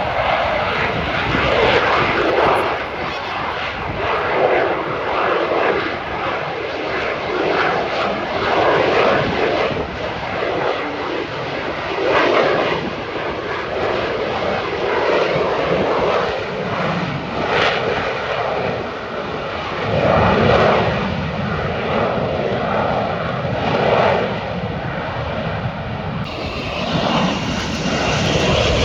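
Aircraft engines in flight, a loud, steady noise that swells and eases every few seconds.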